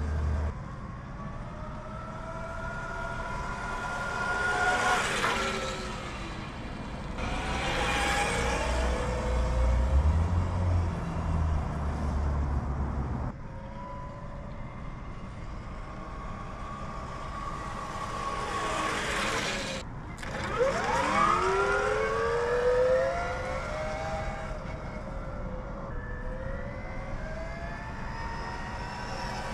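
Whine of an electric motorcycle's 3000-watt mid-drive motor and integrated four-speed gearbox as it rides back and forth. The whine rises and falls in pitch as the bike speeds up, changes gear and slows, and drops sharply in pitch as the bike passes close about two-thirds of the way through.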